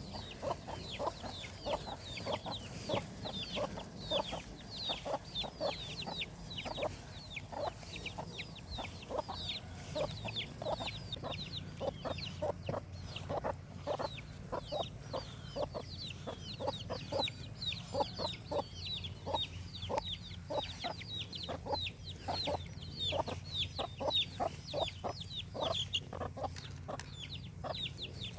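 A flock of chickens clucking and chattering nonstop, many short calls overlapping with quick, high falling chirps among lower clucks.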